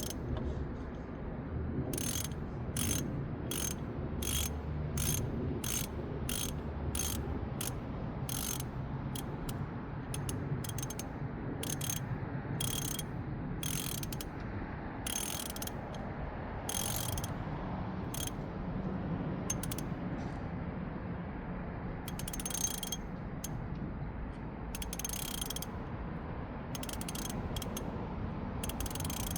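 Socket ratchet wrench clicking in short, irregular bursts of strokes as a fitting is wound in by hand, here the transmission oil pressure switch being threaded back in.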